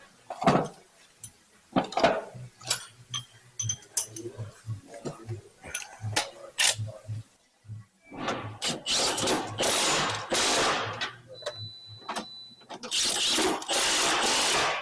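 Wrenches and sockets clicking and knocking on metal, then two longer spells of ratcheting as bolts are run down, about two and a half and one and a half seconds long.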